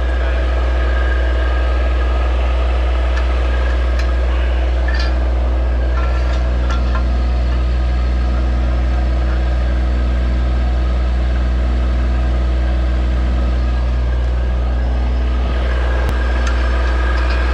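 Skid loader engine idling steadily, holding the chain-hung stone clamp, with a few light clicks over it.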